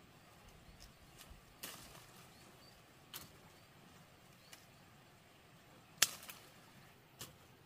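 Six sharp, short knocks or snaps at uneven gaps of about a second, the loudest about six seconds in.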